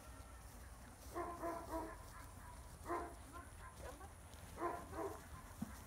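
Young Border collie giving short barks in three bursts, about a second in, at three seconds and near five seconds.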